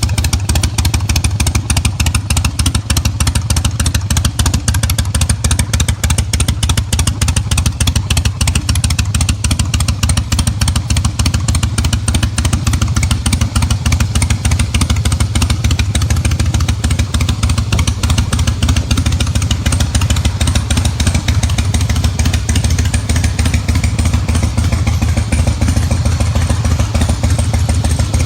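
Motorcycle engine running steadily with a Harley-Davidson-style exhaust note, a rapid, even chugging with a heavy low end that holds constant throughout.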